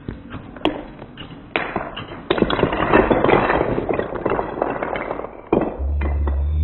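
A few sharp taps of foam Nerf darts striking wooden Jenga blocks, then a tumbling clatter as the block tower collapses and the wooden blocks scatter across a hardwood floor. A low steady hum comes in near the end.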